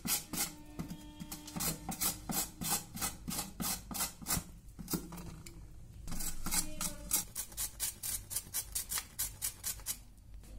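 A carrot being grated by hand on a plastic box grater: quick rasping strokes, about three a second, with a brief pause about halfway through and again near the end.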